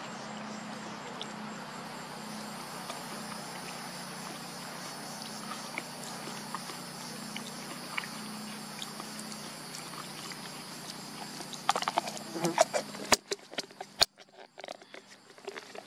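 Steady outdoor background of a high insect drone over a low hum. About twelve seconds in come a few louder clicks and knocks, then the background drops away abruptly, leaving a few sharp isolated clicks.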